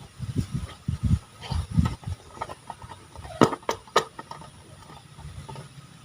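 Slime being squished and worked by hand: soft, irregular squelches, then a few sharp sticky pops about three and a half to four seconds in, and faint crackles after.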